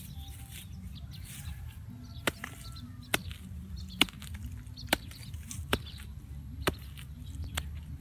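A small hand hoe chopping into grassy soil to dig a hole, with sharp strikes about once a second from about two seconds in.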